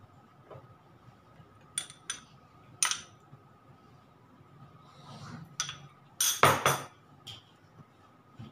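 Metal spoon clinking against glass dessert bowls: a few light ringing clinks, then a louder run of clinks and knocks about six seconds in.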